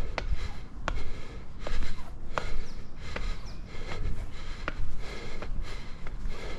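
A climber's breathing while scaling a steel roller coaster track, with irregular sharp clicks and knocks of hands and shoes on the metal, over a low rumble of wind on the microphone.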